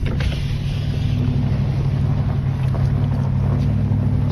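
Pickup truck engine running steadily at low speed on a rough dirt track, a low drone heard from inside the cab, with a few brief rattles at the start.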